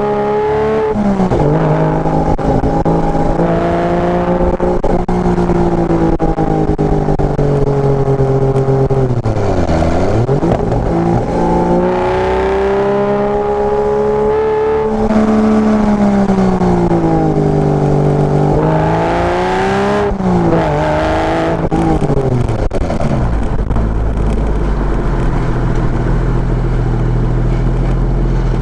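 Porsche Boxster engine through a tuned exhaust, driven on a hill climb: the revs drop and climb again twice, then settle to a low, steady running for the last several seconds.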